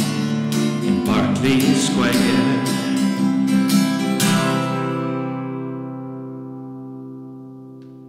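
Guitar playing the song's closing bars: a few more strummed and plucked chords, then a final chord about four seconds in that rings out and fades away before cutting off at the very end.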